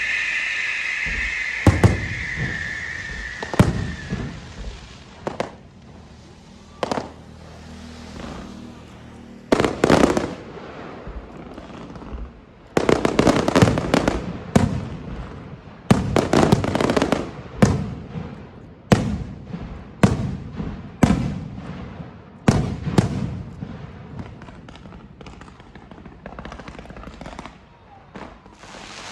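Fireworks display: aerial shells bursting with sharp bangs, each trailing off in a rumbling echo. A high hiss fades out over the first few seconds. The bangs come in quick volleys around the middle and thin out near the end.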